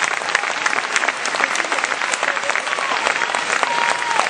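Audience applauding, with many quick claps, and a long held call rising above it near the end.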